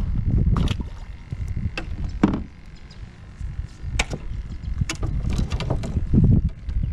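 Kayak paddle strokes splashing in the water, with several sharp knocks and drips, over a steady low rumble.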